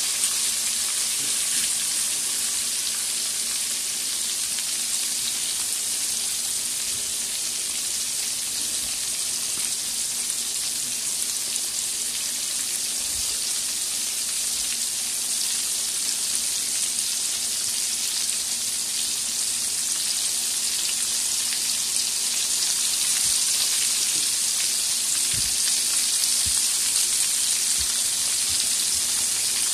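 Flour-dredged sardines frying in shallow hot oil in an aluminium wok: a steady, even sizzle of bubbling oil that grows slightly louder over the last third.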